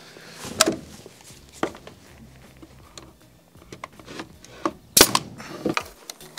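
Pneumatic air nailer firing into plywood: a sharp shot about five seconds in. Lighter knocks and clicks come before it, about a second apart at first.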